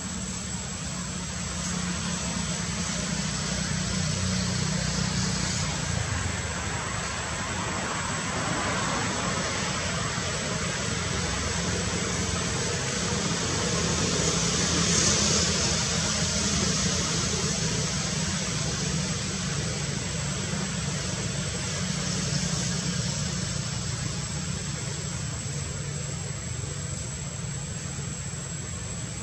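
Steady outdoor background noise: a low rumble under an even hiss, with a thin high steady whine, swelling slightly about halfway through.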